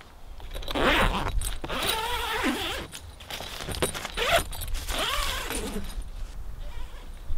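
Zipper on a Kamp-Rite tent cot's nylon cover being pulled open by hand in two long strokes, the first starting about a second in and the second about four seconds in, each a rasp that sweeps up and down in pitch.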